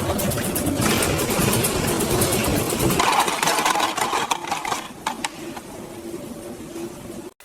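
Candy factory machinery running, a steady mechanical clatter with many quick clicks. It gets quieter about five seconds in and drops out for an instant near the end.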